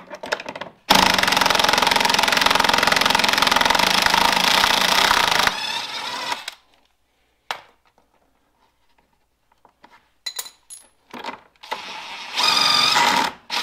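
Cordless impact driver hammering on a 15 mm bolt for about four and a half seconds to undo it. A few small clicks follow, then a second, shorter burst of the driver near the end.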